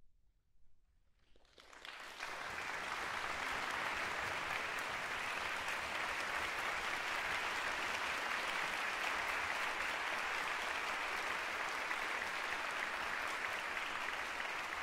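Audience applause: a second or two of near silence, then clapping breaks out about two seconds in, quickly fills in and holds steady.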